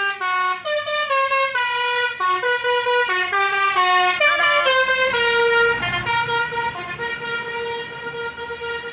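A tour bus's 'telolet' musical air horn, a Basuri multi-trumpet horn, playing a quick melody of stepping notes for about five seconds, then settling into one long held note.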